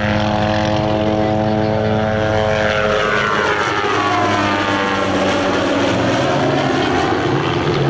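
Hughes MD 500 light helicopter making a low pass: loud steady rotor and turbine sound whose pitch drops about three seconds in as it goes by and moves away.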